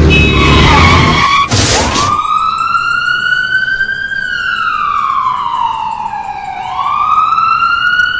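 Loud road-traffic engine noise, cut by a sudden loud crash about one and a half seconds in, staged as a motorbike collision while overtaking. Then an emergency-vehicle siren wails slowly up and down.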